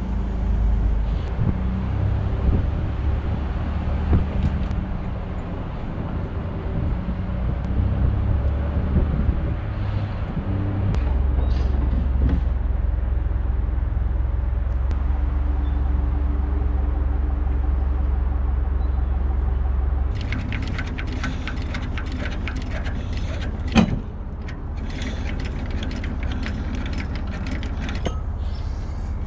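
Pickup truck engine running at low speed as the truck drives and backs up to a trailer. From about two-thirds of the way through, light metallic rattling and clinking joins it, with one sharp knock.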